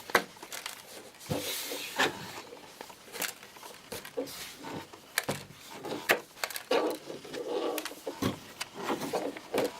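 Toy packaging being handled: irregular rustling and clicking of plastic and cardboard as the loose pieces are put back into the box.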